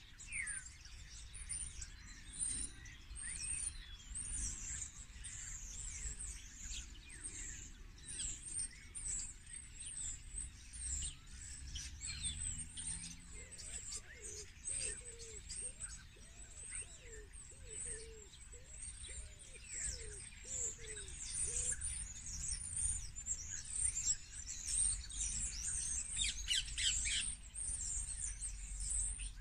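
Outdoor spring birdsong: many small birds chirping and trilling together in a dense, high-pitched chorus. From about 13 seconds to about 21 seconds a lower, falling call repeats around a dozen times.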